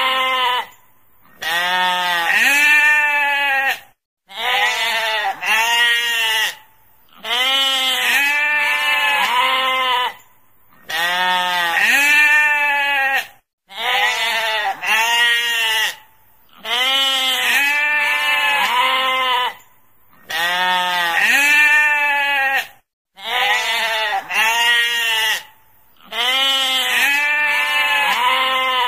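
Sheep bleating over and over. Each bleat lasts a couple of seconds with a quavering, wavering pitch, and short pauses fall between them.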